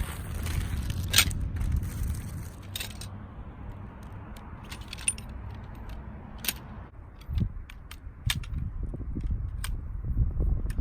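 Strong gusty wind rumbling on the microphone, with scattered sharp clicks and rattles, heaviest in the first three seconds.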